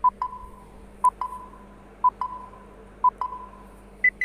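Countdown timer sound effect: four short beeps a second apart, each followed by a quick second blip and a fading tail, then a higher-pitched final beep about four seconds in.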